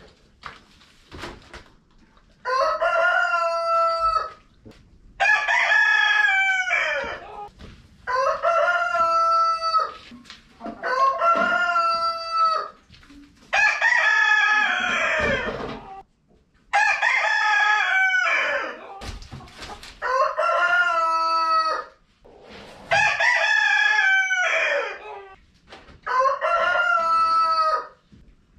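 Rooster crowing over and over: nine long crows about three seconds apart, starting a couple of seconds in, each holding its pitch and falling away at the end.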